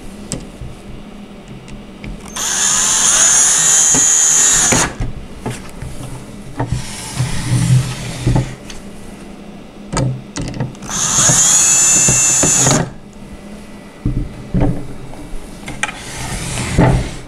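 Cordless drill driving two long screws through the tray arms into the wooden high chair back: two runs of the motor, about two and a half seconds and then about two seconds, with its pitch shifting during each. Light knocks and handling of the wood between the runs.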